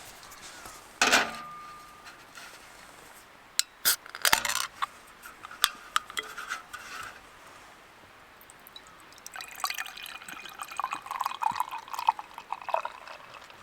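A glass or hard vessel knocked with a brief ringing clink, a few small knocks, then liquid poured into a container for about three seconds near the end.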